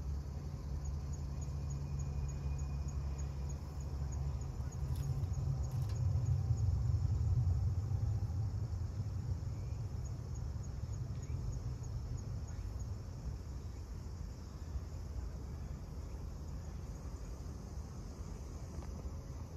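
Outdoor ambience: a low rumble that swells around the middle and eases off, with faint insect chirping at about four to five chirps a second, in two short runs.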